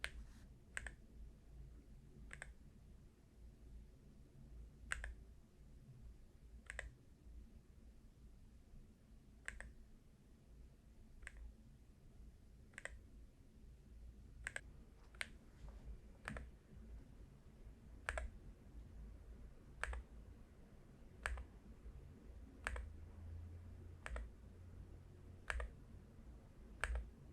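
Individual keystrokes on an AULA Hero68HE keyboard with Hall-effect magnetic switches, each a short faint click, coming one at a time about every one to two seconds.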